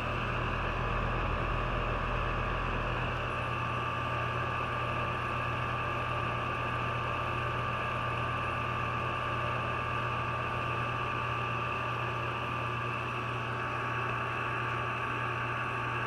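Outdoor air-conditioner condensing unit running in cooling mode: a steady hum from the compressor and condenser fan, with a thin high whine held throughout.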